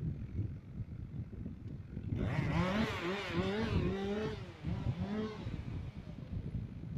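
A machine engine running with an uneven low rumble, joined about two seconds in by a pitched sound that wavers up and down for about three seconds.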